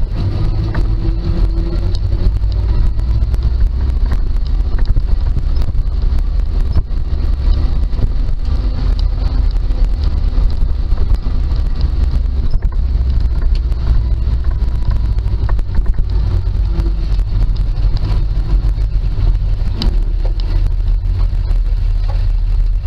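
1948 Dodge 1.5-ton truck's flathead straight-six running under way, heard inside the cab, a loud steady low drone with scattered rattles.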